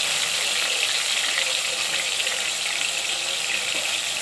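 Chopped tomatoes sizzling steadily in hot mustard oil in a pot as they are stirred with a slotted spoon, with a single click near the end.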